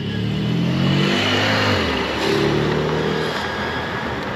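Car engine accelerating, its pitch rising, dropping back about two seconds in as it shifts gear, then rising again.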